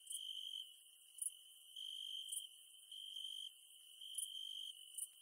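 Insects trilling in a steady high-pitched chorus, like crickets, swelling louder about once a second, with short, very high chirps from another insect about every second.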